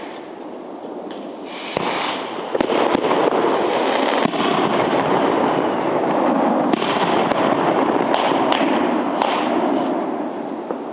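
New Year's Eve fireworks going off in quick succession: a dense, continuous crackle with many sharp bangs on top, growing louder a little under two seconds in.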